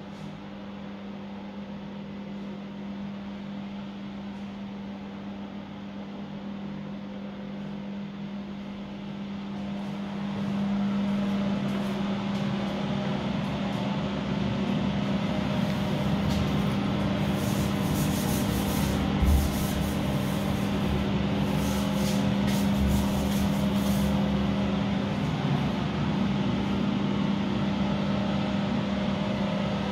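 Steady electric fan hum: a constant low drone with airy noise over it, growing louder about ten seconds in. A few brief rustles come in the middle.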